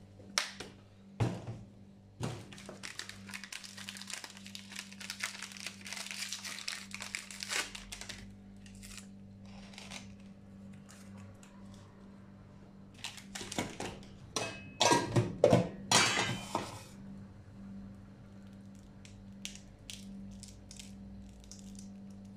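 Crinkling and crunching handling noises as toppings are put on an ice cream cup. A plastic snack wrapper crinkles for several seconds early on, and a louder run of knocks and crunches comes about 13 to 17 seconds in, over a steady low hum.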